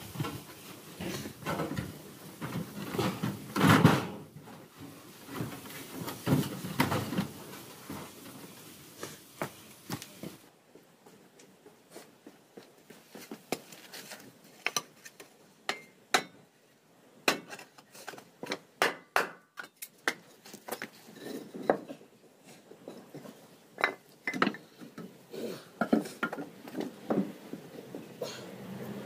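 Irregular knocks, taps and clinks of objects being handled and set down during hand work. A denser run of louder knocks fills the first ten seconds, the loudest about four seconds in, then sharper scattered clicks come in small clusters.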